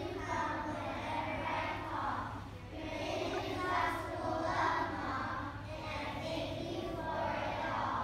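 A choir of young schoolchildren singing together, in phrases that swell and fade every second or two.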